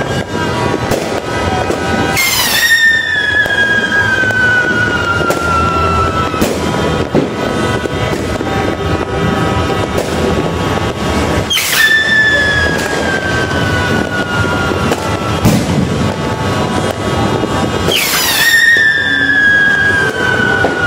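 Whistling fireworks going off three times. Each one starts with a sharp crack, then a whistle slowly falls in pitch for several seconds. Throughout there is a dense din of crackling and bangs from fireworks all around.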